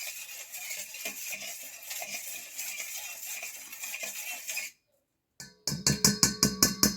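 Dry, steady hiss of flour being scooped and poured with a measuring cup. Near the end comes a quick run of about eight sharp taps with a ringing tone.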